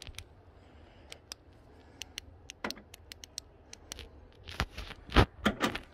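Scattered light clicks and taps, then a few louder knocks near the end, the loudest about five seconds in.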